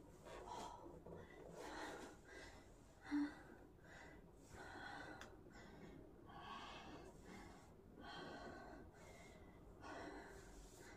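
A person breathing softly in and out, one breath every second or so, with a short low hum about three seconds in.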